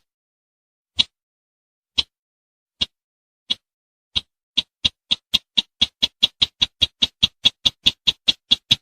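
Call of the sintar semak, the bird used as a hunting lure: a series of short, sharp, high notes, about one a second at first, that speed up from about four seconds in into a fast, even run of several notes a second.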